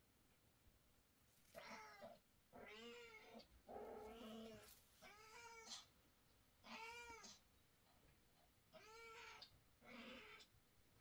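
Scottish Fold mother cat meowing seven times in a row, each meow rising then falling in pitch.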